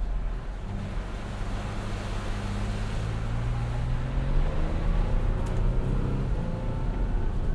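Ford Bronco's 2.7-litre twin-turbo EcoBoost V6 pulling at low speed on a muddy off-road trail, heard from inside the cabin over a steady low rumble. The engine note rises gently through the middle as the throttle is fed in.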